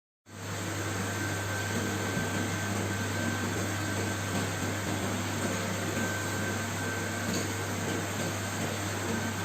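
Steady mechanical hum and hiss, with a strong low hum and a faint steady high tone; it starts abruptly just after the beginning and holds level throughout.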